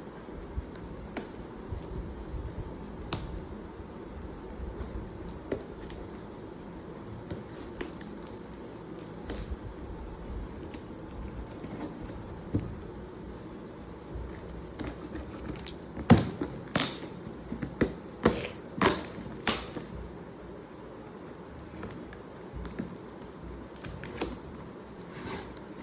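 A parcel of small cardboard boxes being opened and handled: scattered light clicks and rustles, with a run of sharp knocks and clicks about two-thirds of the way through.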